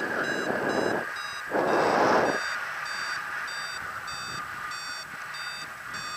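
Paragliding variometer beeping steadily, about three short high beeps a second, climbing slightly in pitch after about two seconds: the tone a vario gives while the glider is climbing in lift. Wind rushes over the microphone, in loud gusts during the first couple of seconds.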